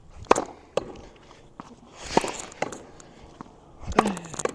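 Tennis wall rally: a string of sharp knocks, about eight, as the racket strikes the ball and the ball smacks off the practice wall and bounces on the court.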